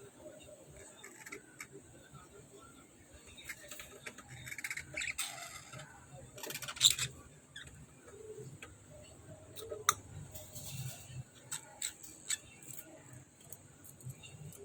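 Pet lovebirds and budgies chirping and squawking on and off, with scattered short calls and a couple of sharper, louder ones about seven and ten seconds in.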